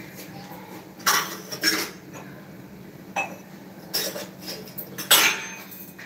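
Steel kitchen pots and utensils clanking as they are handled and set down on a counter: about five sharp clinks and clangs, the loudest about five seconds in.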